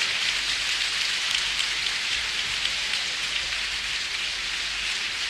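Large audience applauding steadily, many hands clapping at once in a dense, even patter.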